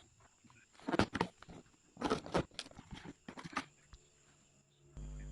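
Brush cutter's box contents being unpacked by hand: a series of sharp knocks and rustles of packing, bunched about a second in and again from two to three and a half seconds in. A steady low hum starts near the end.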